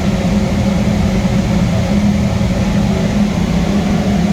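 Steam boiler's burner firing: a steady, loud rumbling hum of flame and combustion blower, with a constant low hum running under it.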